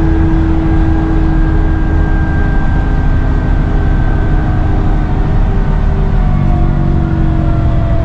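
Dennis Trident 2 / Enviro 400 double-decker bus engine running steadily under way, with a slight turbo whistle. Several thin whining tones over the low engine rumble slowly fall in pitch.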